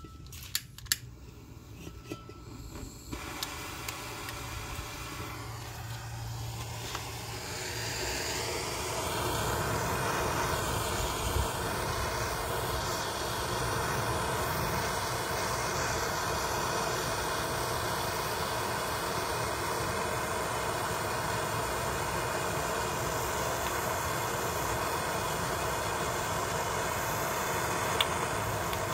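Handheld blowtorch: a few sharp clicks, then the flame hisses on and swells over several seconds to a steady rushing hiss as it plays on an eggshell. There is a single sharp crack near the end.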